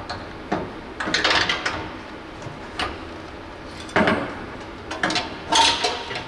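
Captain's Choice stainless-steel muffler with dual tips being worked into place on a side-by-side's chassis by hand: irregular metal clunks, knocks and scrapes, loudest about a second in, at four seconds and again near the end.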